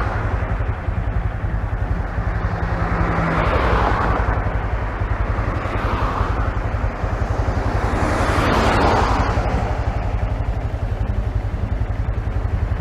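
Honda Grom's 125cc single-cylinder four-stroke engine running as the bike is ridden, heard muffled from a phone in the rider's pocket, with a steady low rumble and several broad swells of rushing noise.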